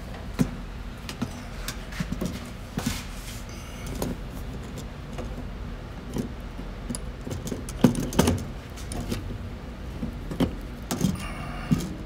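Scattered metallic clicks and clinks of a socket, extension and small ratchet handled and fitted onto a power antenna's mounting nut, with a sharper knock about eight seconds in.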